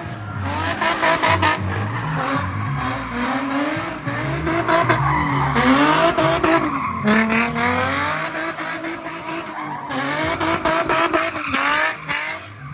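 A Nissan 350Z's 3.5-litre V6 revving up and down repeatedly as the car drifts in circles, its rear tyres spinning and screeching.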